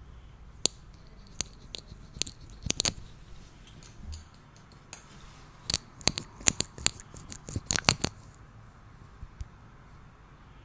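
Makeup packaging and small cosmetic items being handled: scattered sharp clicks and taps, bunched together between about six and eight seconds in.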